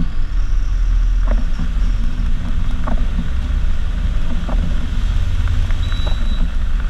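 City bus running along a wet road, heard from inside: a steady low engine rumble under a hiss of noise. Short light knocks come about every second and a half.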